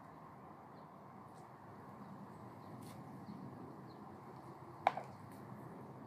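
Faint ticks and scrapes from a kitchen knife cutting raw chicken over a plastic basin, with one sharp click about five seconds in.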